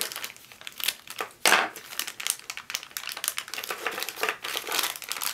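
Thin clear plastic parts bag crinkling as it is handled and opened, with a run of small crackles and one louder crackle about a second and a half in.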